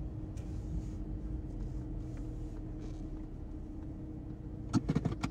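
Steady low hum of a car moving slowly through a parking lot, heard from inside the cabin. A short voice-like sound comes near the end.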